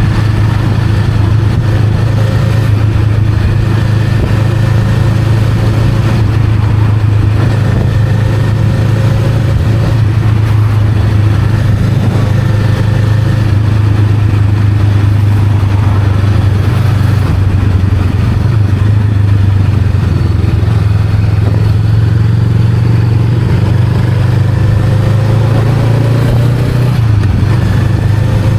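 Honda Rebel 500's 471 cc parallel-twin engine running steadily while riding, its pitch rising in short stretches several times as the bike accelerates.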